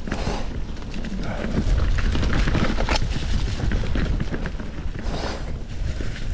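Polygon D6 mountain bike riding over a dirt trail: a steady low wind rumble on the microphone, with many small clicks and rattles from the bike and tyres on the ground, and a few short rushing swells.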